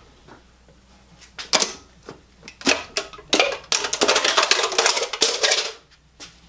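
Ratchet wrench clicking in short bursts, the clicks coming fast and close together for the last couple of seconds before stopping.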